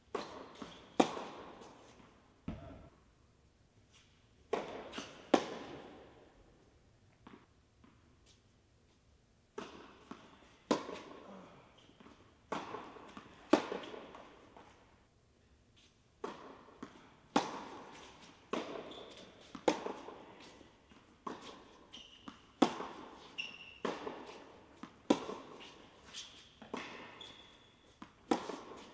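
Tennis rally on an indoor hard court: racket strikes on the ball and the ball bouncing, sharp hits roughly a second apart that echo in the hall, in runs with short pauses between points.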